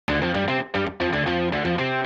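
Intro music: a fast run of short, chopped notes that starts abruptly, with two brief gaps a little before and at about one second in.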